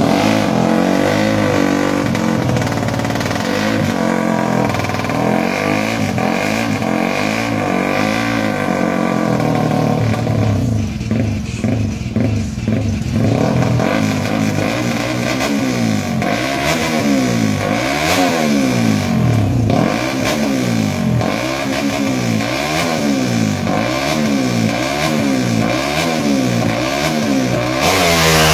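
Several small racing motorcycle engines revving at a drag-strip start line, the pitch going up and down over and over as the throttles are blipped, about once a second in the second half. The engines get louder right at the end.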